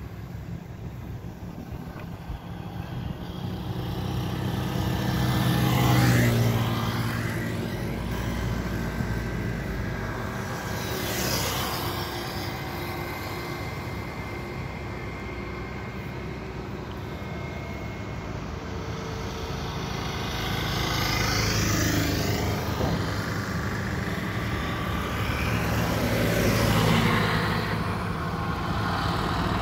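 Road traffic passing close by: motorcycles and a truck, each swelling and fading as it goes past, about four pass-bys, loudest about six seconds in and near the end. A low steady rumble runs underneath.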